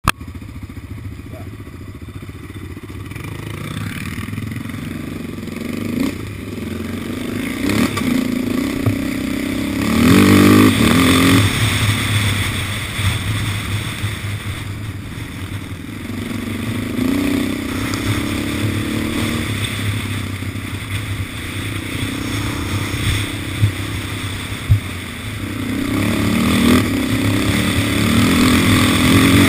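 Yamaha Raptor 700 quad's single-cylinder four-stroke engine running under way, its pitch rising as it accelerates about ten seconds in and again near the end. Two sharp knocks about three-quarters of the way through.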